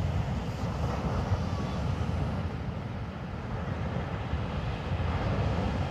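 Surf breaking on a sandy beach, a steady wash of noise, with wind rumbling low and unevenly on the microphone.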